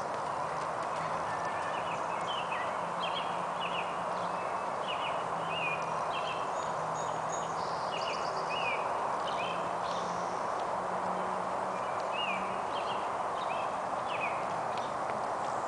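Small birds chirping repeatedly over a steady outdoor hiss, with faint hoofbeats of a distant ridden horse on soft arena footing.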